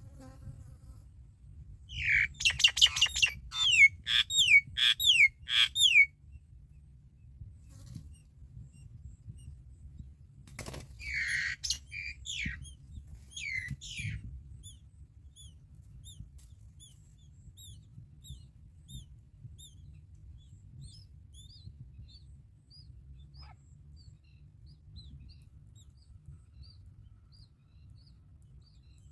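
A common myna begging for food: two loud bouts of rapid, repeated harsh calls with falling notes, the first about two seconds in and the second a little before halfway. After them comes a long run of faint, high chirps, repeated at an even pace, over a low steady rumble.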